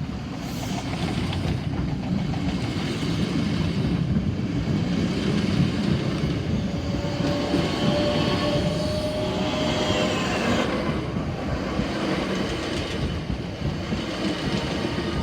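Southeastern Class 465 Networker electric multiple unit, two units coupled, passing at speed: a steady rumble of wheels on rail, with a faint whine in the middle.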